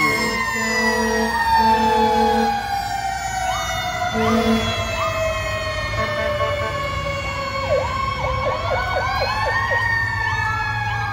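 Sirens of a passing fire ladder truck and a following emergency SUV: several long, slow wails winding down in pitch, with a rapid yelp about eight seconds in. Short horn blasts sound three times in the first few seconds, over a low engine rumble.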